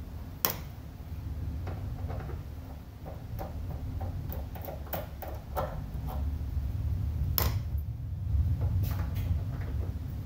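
Scattered small clicks and taps of a screwdriver and loose screws being worked out of an aircraft's nose cowling, with two sharper knocks, one near the start and one about seven seconds in, over a steady low hum.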